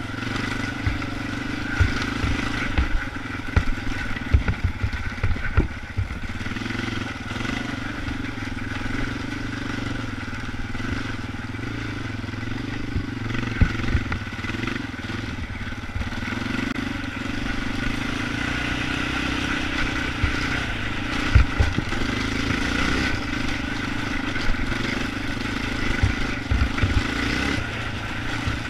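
Yamaha Raptor 250 ATV's single-cylinder four-stroke engine running under load, its pitch rising and falling as the throttle is worked, with scattered knocks and thumps from the machine riding over rough ground.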